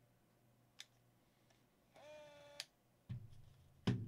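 Pentax compact zoom film camera: a click, then its small electric motor whirring steadily for about half a second, rising briefly in pitch as it starts and stopping with a sharp click. Two knocks follow near the end, the second one the loudest, as the camera is set down on a table.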